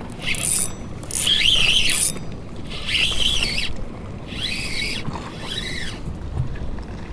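Spinning reel whirring in several short bursts, each a whine that rises and falls in pitch, as a hooked fish is fought on the rod.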